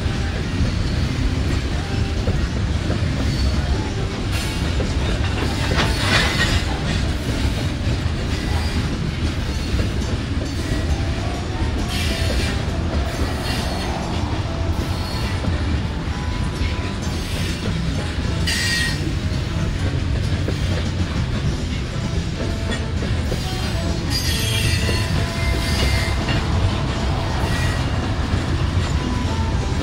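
Loaded coal hopper cars of a long freight train rolling past: a steady low rumble of wheels on rail, with short bursts of high wheel squeal several times.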